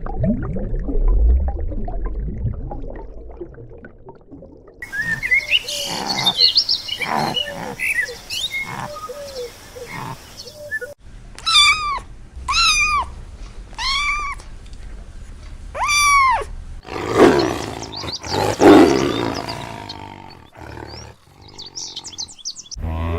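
A run of different animal calls one after another: a low rumbling growl at first, then chirps, four arched calls in a row, a loud rough call, and high chirps near the end.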